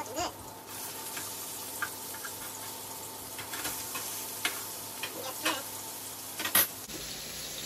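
Pieces of salmon frying in a pan with a steady sizzle. A fork clicks sharply against the pan several times as the pieces are turned, with the loudest click near the end.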